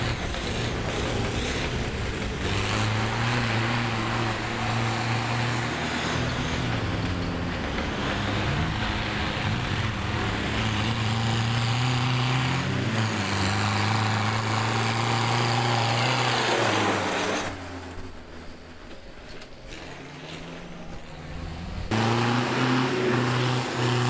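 Tractor engines running and revving, their pitch stepping up and down. The engine sound drops away sharply about two-thirds of the way through and comes back loud near the end.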